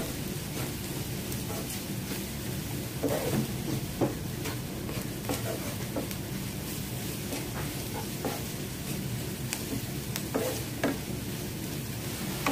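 Wooden spatula stirring onions and spice powders frying in oil in a nonstick pan: a steady sizzle with scattered knocks and scrapes of the spatula against the pan.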